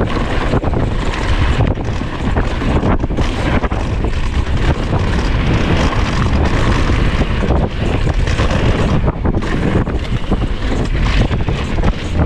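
Wind rushing over the point-of-view camera's microphone while a Polygon XquareOne DH9 downhill mountain bike runs fast over a dirt forest trail, its tyres rumbling and the bike giving off frequent short knocks and rattles over the bumps.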